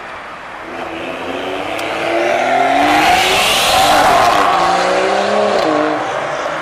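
A BMW 3 Series sedan pulls away and accelerates hard. Its engine revs climb and are loudest about three to four seconds in, then drop at a gear change and climb again, falling once more near the end.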